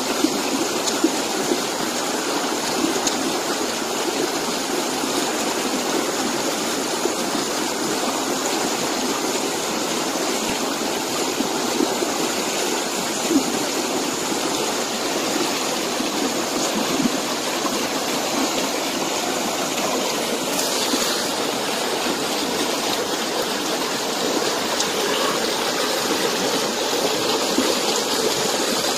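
Small waterfall cascading over rocks into a stream: a steady rush of water.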